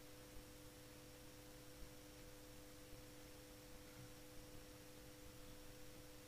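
Near silence: a faint, steady background hum made of two constant tones, with no other sound.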